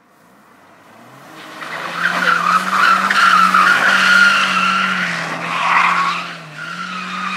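BMW E36 316i's four-cylinder engine held at steady revs while its rear tyres squeal through a drift. The squeal builds from about a second in, eases briefly near six seconds, then picks up again near the end.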